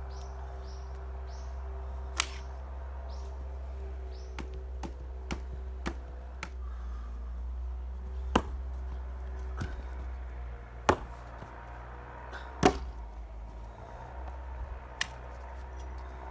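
Axe splitting firewood: a handful of sharp chops a few seconds apart, the loudest about twelve seconds in, with lighter knocks of wood between them.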